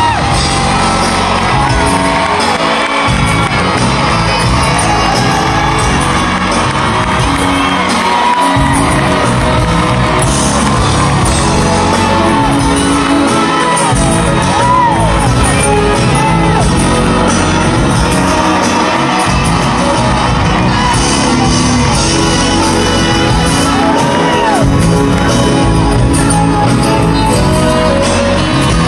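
Live band music with a singer, heard loud and unbroken from among the audience in a large hall, while fans shout and whoop along at intervals.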